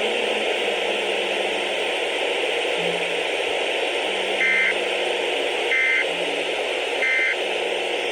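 Radio static hiss under three short, two-pitch digital data bursts about 1.3 seconds apart in the second half: Emergency Alert System SAME code, short enough to be the end-of-message signal.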